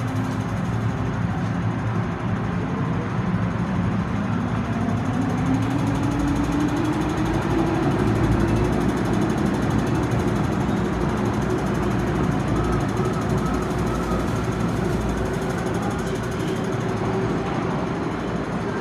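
Hong Kong MTR Tsuen Wan Line M-Train electric multiple unit pulling out of an underground station. A motor whine rises in pitch over the first several seconds and then holds steady over a dense rumble of wheels on rail. The sound grows somewhat fainter in the second half.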